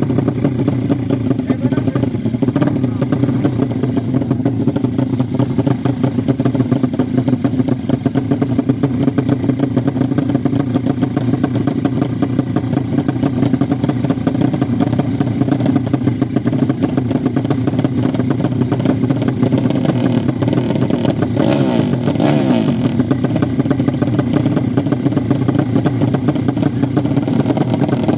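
A 200cc underbone motorcycle racing engine idling steadily, with a brief rise in revs about 21 seconds in.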